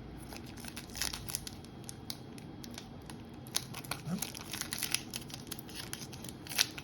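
A trading card pack's wrapper being handled and opened: a scatter of short, irregular rustles and small clicks.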